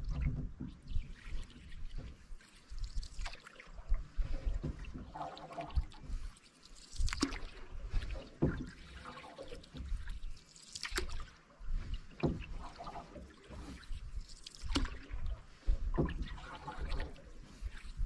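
Canoe paddle strokes in the water, with irregular splashes, trickles and drips off the blade.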